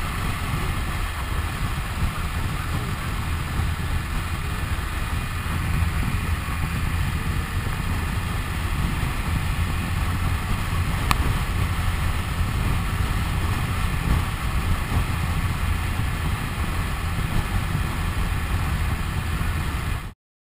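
BMW K1300S inline four-cylinder engine running at a steady cruise, mixed with wind noise on the microphone of the moving motorcycle. There is one brief click about 11 seconds in, and the sound cuts off suddenly near the end.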